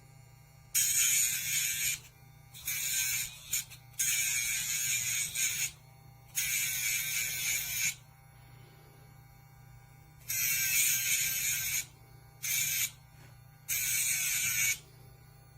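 Casfuy electric dog nail grinder running with a steady hum, its rotary grinding drum pressed to the dog's nails in repeated short passes of about a second each, some eight of them, each a loud grinding hiss.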